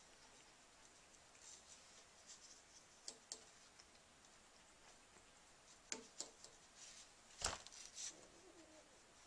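Quiet, scattered taps and clicks of a watercolour brush being worked on paper and against the paint box, with one sharper knock about seven and a half seconds in.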